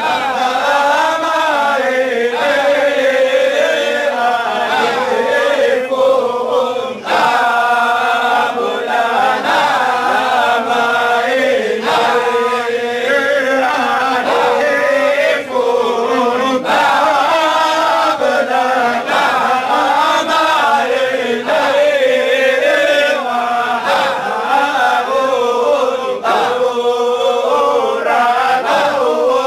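Group of men chanting a Shadhili Sufi dhikr together, many voices holding one continuous chant line with short breaks between phrases.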